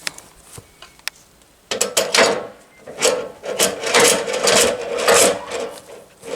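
Repeated rasping scrapes of wood rubbing on wood, about two strokes a second, starting a little under two seconds in after a couple of light clicks.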